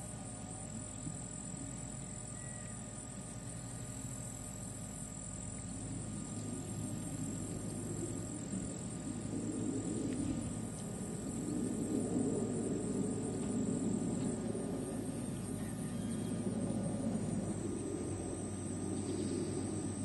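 Steady high-pitched insect chorus, with a low rumbling noise that swells up from about halfway through and becomes the loudest sound.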